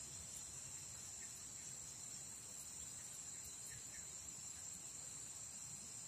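Steady high-pitched drone of insects, crickets or cicadas, running without a break, with a few faint short chirps over it.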